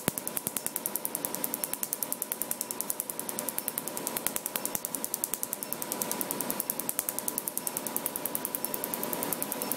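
Laser tattoo-removal handpiece firing pulses into tattooed skin: a fast, regular series of sharp snaps, roughly eight to ten a second, over a steady high hum.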